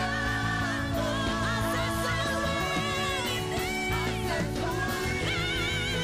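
Live worship music: a group of singers on microphones singing together over keyboard accompaniment, amplified through a PA, with several voices holding wavering, sustained melody lines.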